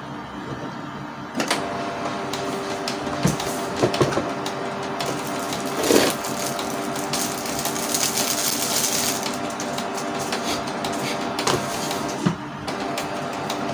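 Canon G1010 inkjet printer running a head-cleaning cycle: its motor whirs steadily with clicks and knocks from the mechanism, starting about a second and a half in and stopping near the end. The cleaning cycle is pumping waste ink out through the drain tube into the external waste tank.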